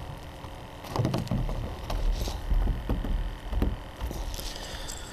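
Water splashing and soft knocks as a live menhaden is caught by hand out of a boat's livewell, over a low wind rumble on the microphone.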